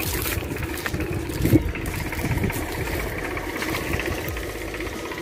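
A tractor engine running steadily in the background, a continuous low mechanical drone, with one short knock about one and a half seconds in.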